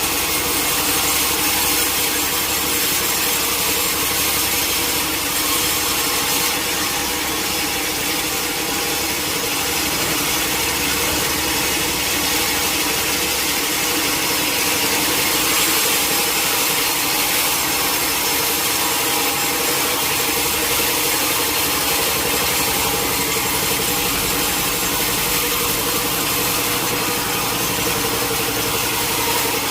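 Sawmill saw cutting through teak wood: a steady cutting hiss over the machine's continuous running hum.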